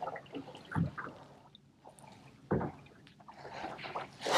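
Water lapping and slapping against the hull of a small boat on a calm sea: soft splashes about a second in and again around two and a half seconds, building again near the end.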